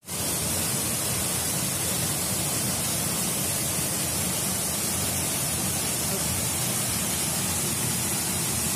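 Steady, even rush of flowing water, without pauses or changes.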